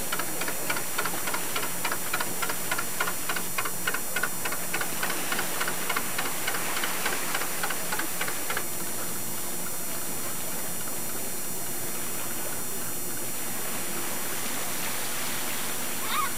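Old wooden fishing boat's inboard engine chugging slowly with an even exhaust beat of about three putts a second, which cuts off suddenly about two-thirds of the way in and gives way to a steady engine hum and wash of water.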